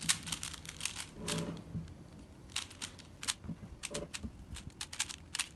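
A 3x3 Rubik's cube being turned quickly by hand, its plastic layers clicking in fast, irregular runs as it is solved.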